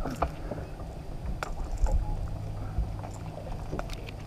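Low steady rumble with scattered light clicks and knocks and one dull thump about two seconds in, from a caught bass being held and handled on a boat deck.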